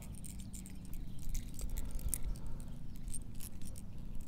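Small clicks and scrapes of a brass coupler being threaded by hand onto the brass end fitting of a coiled polyurethane air hose, scattered irregularly throughout.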